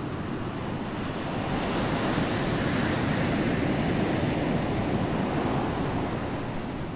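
Sea waves washing in: a steady rushing noise that swells about a second and a half in and eases off near the end.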